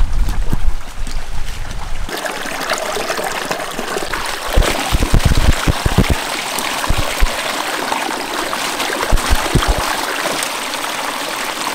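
River water flowing and trickling, with a few low splashing knocks around the middle as a large fish is rinsed in it. The sound changes abruptly about two seconds in.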